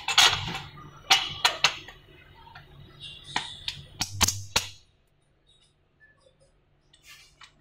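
Small steel bench hardware, a screw and a ringed pin, clinking and clicking against the steel frame bracket as they are fitted by hand: a scattering of sharp clicks over the first five seconds, then it goes quiet.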